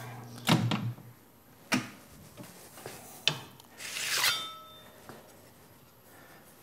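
Manual box-and-pan sheet metal brake being worked: a loud metal clunk about half a second in, then two sharper knocks from the clamp and bending leaf. About four seconds in, the bent sheet-metal plate scrapes out of the brake's jaws with a brief metallic ring.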